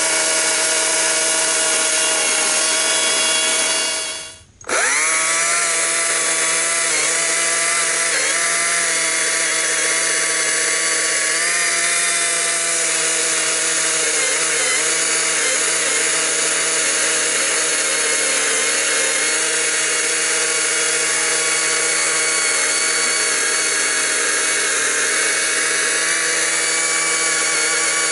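Stihl MSA 200 battery-powered chainsaw cutting through a large oak log: a steady electric motor whine over the noise of the chain in the wood, its pitch sagging slightly now and then under load. About four and a half seconds in the sound drops out briefly, then the motor spins quickly back up to speed.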